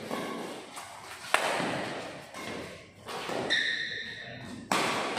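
Badminton rally: sharp cracks of rackets hitting the shuttlecock, the loudest about a second and a half in and another near the end, with a high squeak lasting about a second in between.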